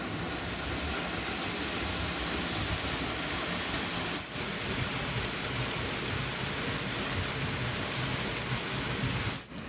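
Tall waterfall, perhaps 50 feet high, with a steady rushing hiss of falling water. The sound dips briefly about four seconds in and cuts out for a moment near the end.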